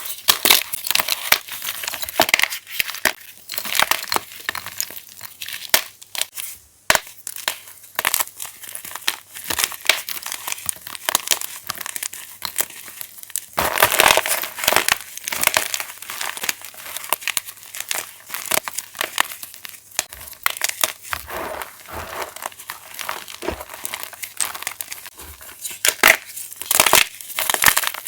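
Fresh plain gym chalk being crushed close up, crumbling with a dense run of crunches and crackles, with louder bursts of crushing about a quarter and then nine-tenths of the way through.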